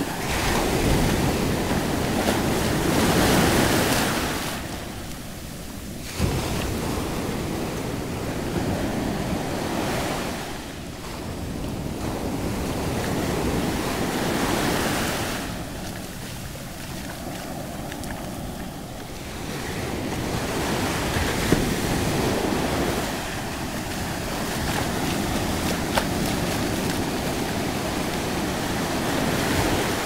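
Small ocean waves breaking at the shoreline and washing up the sand in foamy swash, the rush of water swelling and fading every few seconds.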